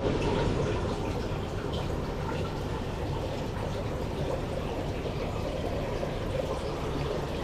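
Water running steadily into a tank from a pipe.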